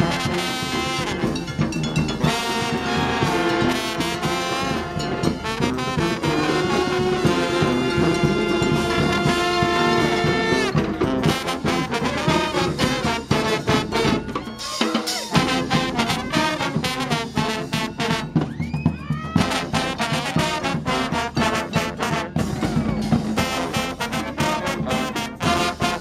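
Street brass band playing live, with trombones, trumpets and sousaphones. For about the first ten seconds the horns hold long chords. After that, drum hits crowd in, with shorter brass notes over them.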